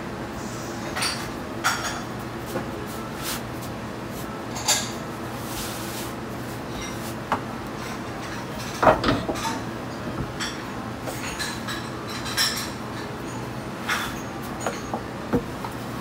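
Scattered light knocks and clicks of a long wooden rolling pin against a wooden worktable as a large sheet of udon dough is unrolled and rolled back onto it, the loudest cluster a little past the middle, over a steady low hum.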